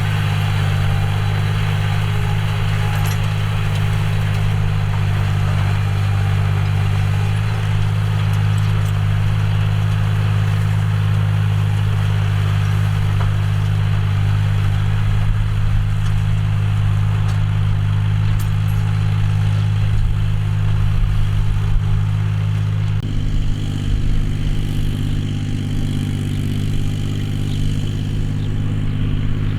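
John Deere 5045D tractor's three-cylinder diesel engine running steadily while pulling a plough. Its note shifts suddenly about three-quarters of the way through.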